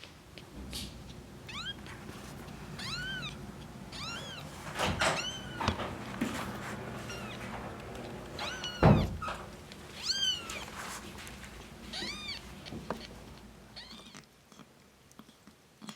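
Two-week-old kitten mewing: about eight short, high-pitched mews, each rising then falling in pitch. A loud thump about nine seconds in.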